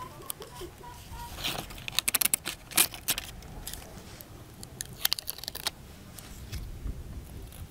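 Crisp crackling and rustling as a paper backing sheet is peeled off clear adhesive film and the film is handled between the fingers, in two spells of quick crackles, about a second and a half in and again about five seconds in.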